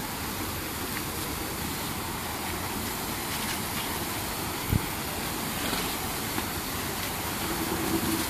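Steady rushing background noise with a single short knock a little past halfway.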